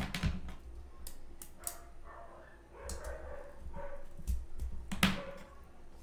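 Cardboard pieces being handled and pierced by hand on a table: scattered clicks, taps and scrapes, the loudest knock about five seconds in.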